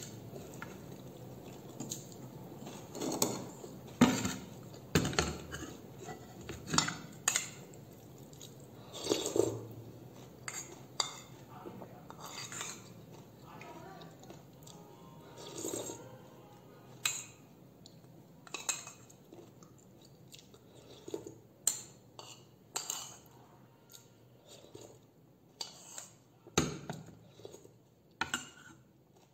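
Metal spoon clinking and scraping against a bowl while eating, in irregular sharp clicks, the loudest about four seconds in, with softer eating sounds between them.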